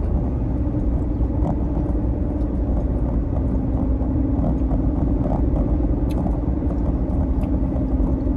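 Steady low rumble and hum of a car's cabin with the engine running, with a few faint small clicks.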